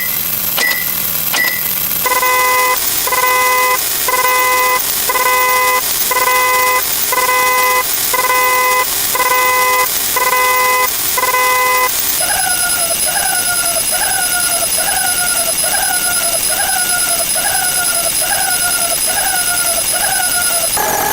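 Electronic alarm-style sound effects in three runs. First short high beeps about once a second; from about two seconds in, louder beeps of several tones together, about one a second. From about twelve seconds in, a repeated falling chirp about once a second, with a steady high whine behind it.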